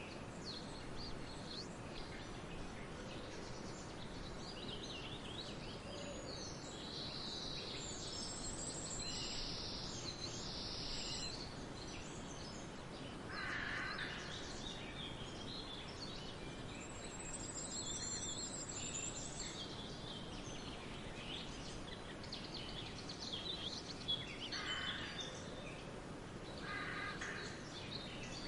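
Several wild birds singing and calling over a steady background of outdoor noise, with high chirps and trills throughout. A few lower, harsher calls come about halfway through and again near the end.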